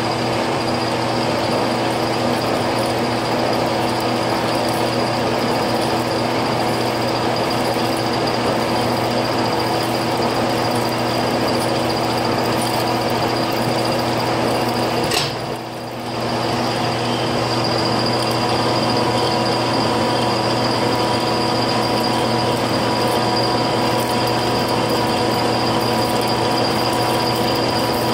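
Large metal lathe running steadily while single-point threading a stainless steel pipe at 12 threads per inch: a steady machine hum with a high whine on top. The sound dips briefly about halfway through, then picks back up.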